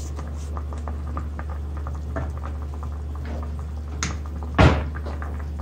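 Chicken curry bubbling at a simmer in a metal pot, with many small crackling pops and a steady low hum underneath. About four and a half seconds in, a spatula stirring the pot gives a short, louder scrape against its side.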